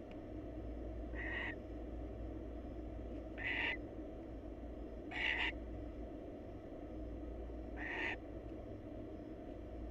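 Barn owl giving short raspy hissing calls, four in all, a couple of seconds apart, over a steady low hum.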